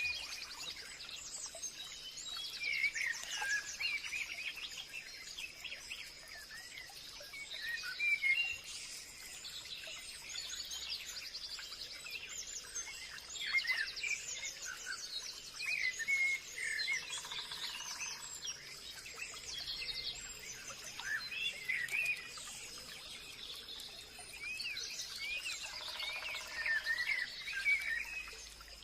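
Forest birds chirping and singing, many overlapping short calls and trills that come in clusters every few seconds, over a steady high thin whine.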